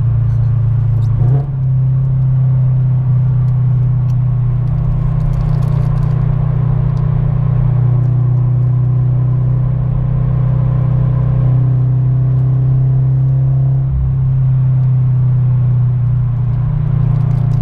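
Subaru BRZ's flat-four boxer engine and road noise heard from inside the cabin while driving, a steady low drone. There is a brief dip in level about a second in.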